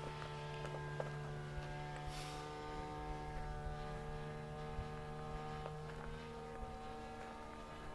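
Glow-fuel two-stroke engine of a radio-controlled model airplane running steadily in flight, a high droning buzz that slowly fades as the plane moves farther off.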